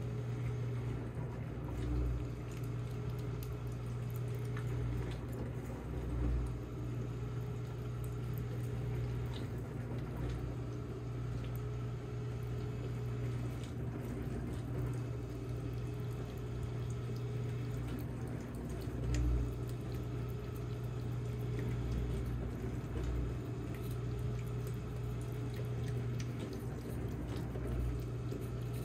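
Cats licking pumpkin puree off a plastic spoon: faint small wet clicks over a steady low hum, with a few soft low thumps.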